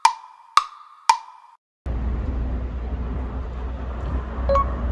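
An edited sound effect of three sharp, hollow wood-block knocks about half a second apart, each with a short ring, laid over a time skip. After a moment of dead silence, a steady low outdoor rumble comes in.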